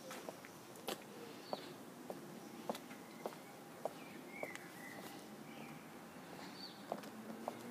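Footsteps on a pavement at walking pace, faint against a quiet outdoor background, with a few brief bird chirps now and then.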